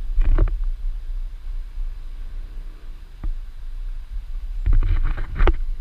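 Wind buffeting an action camera's microphone: a steady low rumble, with two louder gusts, one right at the start and one near the end.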